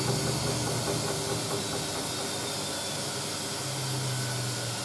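Hoover A3060 Electronic 1100 washing machine's drum and motor running down after the final spin: a steady whirring hum with hiss, gradually getting quieter as the drum slowly coasts down.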